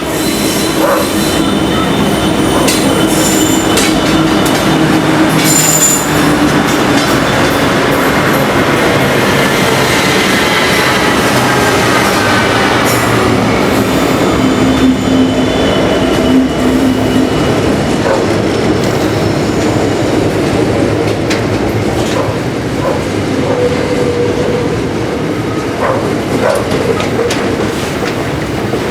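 A long diesel-hauled freight train passing close by: the steady rumble of the locomotives and wagons, with scattered clanks and clicks from the wheels on the rail joints and several long steady wheel squeals that come and go.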